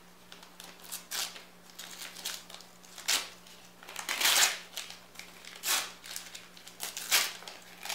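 Gift-wrapping paper crinkling and tearing in irregular bursts as a present is unwrapped by hand.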